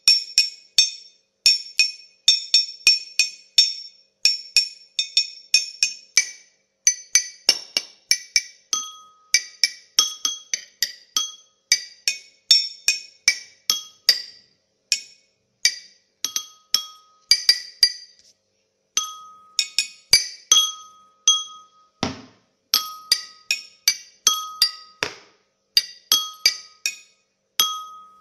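Glass struck repeatedly in quick runs of sharp clinks, each ringing briefly at a few bright pitches, with some strikes at a lower ringing pitch later on and one heavier knock about two-thirds of the way through.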